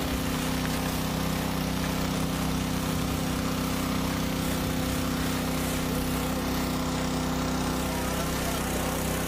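A steady mechanical drone, like an engine idling, with a constant low hum that does not change.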